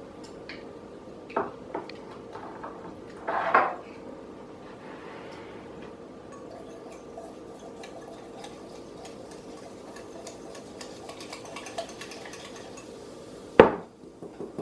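A spoon clinking and scraping against a bowl while stirring a liquid mixture, with small quick ticks for several seconds and one sharp loud knock near the end.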